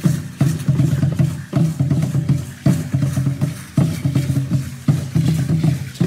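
Aztec ceremonial dance drumming: a large drum beating a steady rhythm, a heavy stroke about once a second with lighter strokes between, with dancers' rattles clattering over it.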